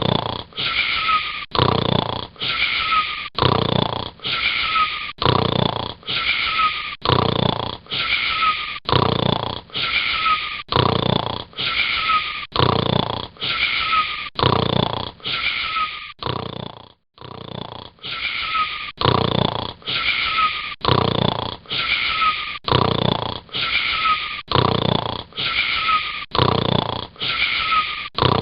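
Snoring: a short, rasping, wheezy snore repeating evenly about once a second, each one much like the last, with a brief break a little past halfway.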